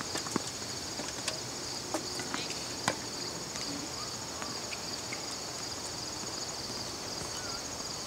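Steady high-pitched chorus of insects from the surrounding trees, with a few sharp knocks scattered through it, the loudest about three seconds in.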